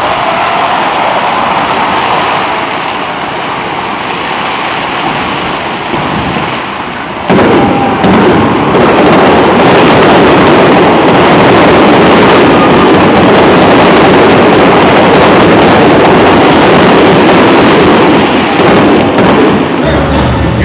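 Fireworks display: a steady rushing noise while fountain fireworks burn, then, about seven seconds in, a much louder, continuous barrage of aerial shells bursting and crackling.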